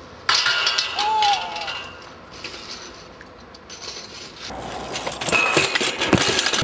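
BMX bike and rider striking a steel handrail: a sudden metallic scrape and clatter about a third of a second in, lasting about a second, then a run of knocks and clanks as the bike crashes near the end.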